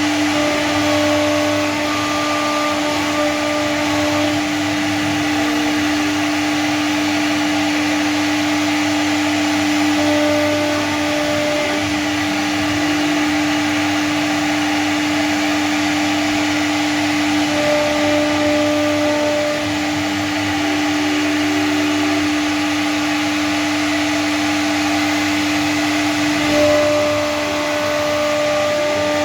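CNC router spindle running steadily with a constant whine while cutting a design into PVC board, with shorter higher tones coming and going now and then.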